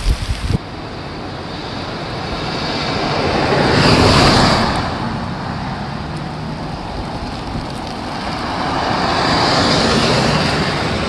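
Two vehicles passing by, each a rushing tyre noise that swells and fades: the first loudest about four seconds in, the second near the end.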